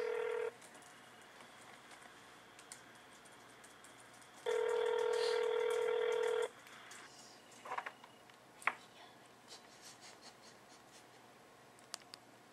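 Ringback tone of an outgoing call played over an iPhone's speakerphone: a steady ringing tone sounds briefly at the start, then again for about two seconds after a four-second gap. This is the North American ring cadence, the sign that the call is ringing through at the other end. A few sharp clicks follow about eight seconds in.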